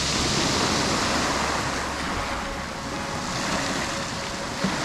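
Surf: small waves breaking and washing up a pebble beach, a steady hiss that swells and eases.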